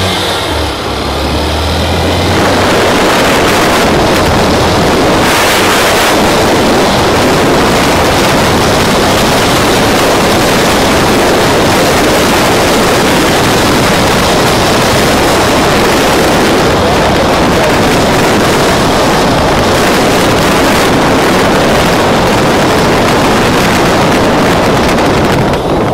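Motorcycle running along a city street, its engine hum buried under steady wind rushing over the rider-mounted camera's microphone; the engine is clearest in the first two seconds, before the wind takes over.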